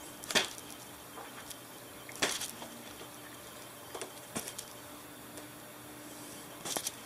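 A Sphynx cat pawing at a window behind a net curtain: short bursts of tapping and scraping on the glass with rustling of the curtain, the loudest about half a second in and two seconds in, and again near the end.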